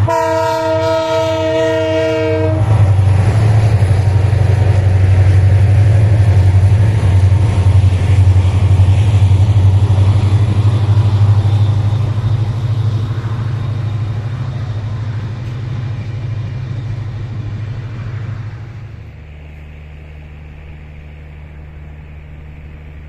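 Train horn sounding a steady chord for about two and a half seconds, then the train running past with a loud low hum and rumble. About nineteen seconds in, this drops to a quieter steady hum.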